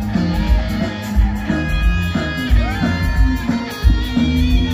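Live band playing Ethiopian pop music through a loud PA: electric guitar lines over a steady bass and drum beat of about two pulses a second.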